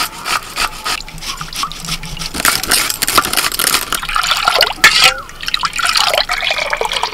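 A few drips of lime juice from a hand-held metal squeezer, then juice poured in a thin stream into a steel bowl of juice, splashing and bubbling as it fills.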